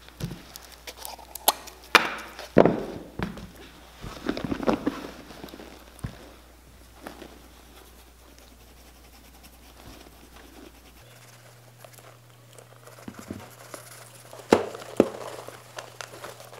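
Knocks and thuds of leather cowboy boots and a glass jar of shoe cream being picked up, tilted and set down on a leather-covered workbench, with soft scuffing of gloved hands between. There is a cluster of knocks in the first three seconds and two more near the end.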